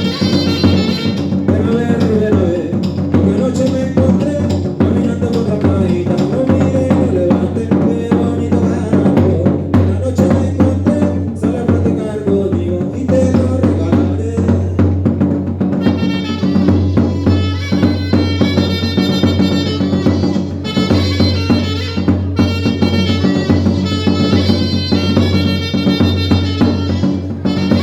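A band playing music: a steady drum-kit beat with bass drum and snare under held melody notes and chords. About halfway through, brighter sustained upper parts come in.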